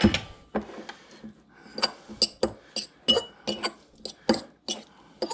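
A utensil clinking against a bowl as coleslaw is mixed with sriracha: about a dozen irregular, ringing clinks, two or three a second, the loudest at the very start.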